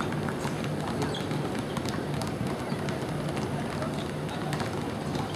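Outdoor ambience of an amateur football pitch: a steady rushing noise with scattered faint clicks and knocks.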